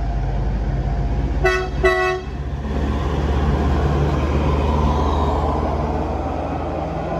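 A bus horn gives two short toots of the same pitch about a second and a half in. Underneath, a heavy vehicle engine drones steadily; it grows louder a few seconds later, then eases off.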